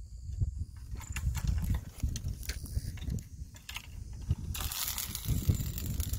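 Rustling and scattered small clicks of fishing rods and rod stands being handled, over an uneven low rumble of wind on the microphone; a louder stretch of rustling comes about two-thirds of the way in.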